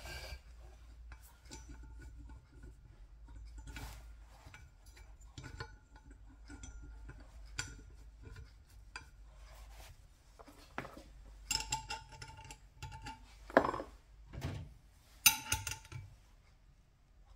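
Steel tools and puller parts clinking and tapping against a cast motorcycle flywheel as the puller is fitted and its screw is worked with a spanner. Several louder metallic clanks that ring briefly come in the second half.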